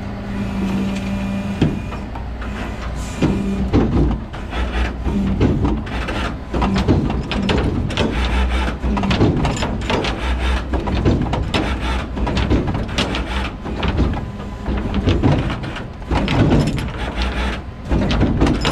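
Rollback tow truck running with a steady engine hum under a long run of irregular metallic clunks and knocks, from the tilted bed being jerked to shake a wrecked car, stuck in gear, loose and off it.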